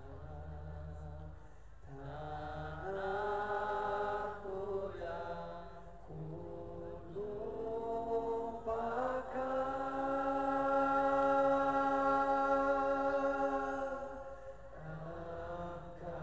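Islamic sholawat singing played over a large outdoor concert PA: several voices chant a slow melody, with one long held note in the middle.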